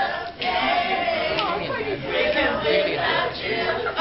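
A group of young voices singing together, many wavering pitches overlapping, with a brief dip about a third of a second in.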